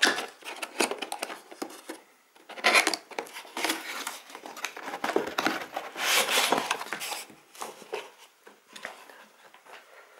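Cardboard box being opened by hand: a tamper-resistant seal sticker peeled off, then the lid's tab and flaps scraping and rustling as the lid is worked loose and lifted. The loudest scrapes come about a quarter of the way in and again just past the middle, and it is quieter toward the end.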